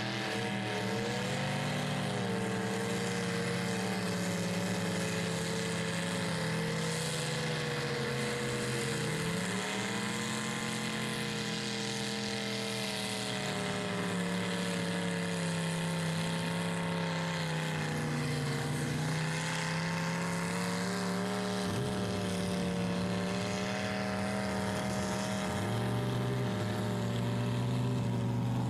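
Lifted mud truck's engine running hard at high revs as it churns through a mud pit. Its pitch rises and falls slowly with the throttle.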